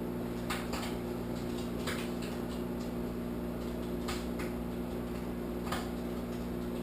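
Microwave oven running with a steady hum while bacon cooks inside, with a few faint crackles.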